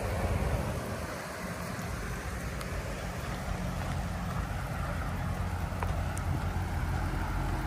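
Wind rushing over the microphone of a moving camera, over a steady low rumble from the vehicle it rides on.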